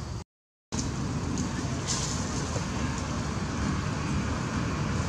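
Steady low rumbling outdoor background noise, with a few faint clicks. The sound cuts out completely for about half a second just after the start.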